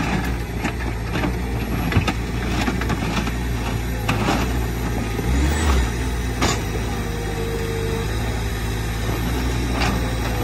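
Skid-steer loader engine running steadily while its bucket pushes into broken asphalt slabs, with scattered clunks and scraping of the asphalt chunks against the bucket and pavement.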